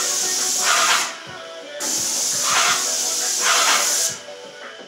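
Hose-fed spray gun hissing in long bursts as the trigger is pulled and released: spraying about a second, a short break, then a burst of over two seconds, stopping and starting again near the end.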